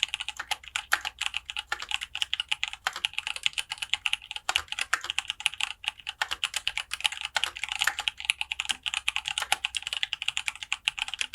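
Fast, continuous typing on a full-aluminium-case mechanical keyboard with lubed Zealios 62 g tactile switches and dye-sublimated keycaps: a dense stream of crisp keystroke clacks, several per second, with no pauses.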